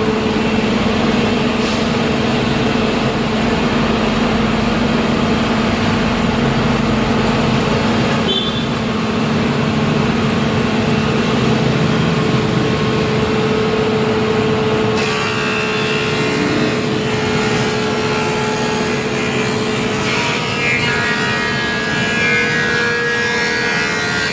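Wood planer machine running with a steady motor hum. From about fifteen seconds in the sound grows brighter and rougher.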